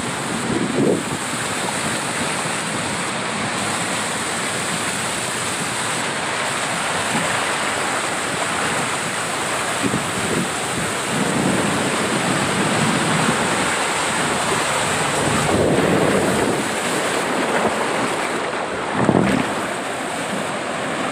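Steady rush of water and wind on the camera as a tube rides a water slide, with a few low thuds and swells of water, the strongest near the end.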